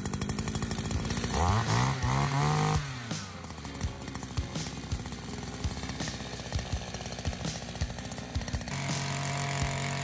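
Small two-stroke engine of a wheeled string trimmer mower running: it revs up briefly about a second in and drops back to a rough, ticking idle, then settles into a steady drone near the end.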